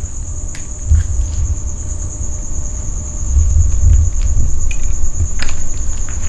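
Crickets trilling steadily in a high, continuous chirr, over a low rumble that swells about a second in and again from about three seconds on.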